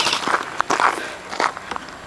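Footsteps crunching on loose desert gravel: a handful of irregular steps, loudest about a second in.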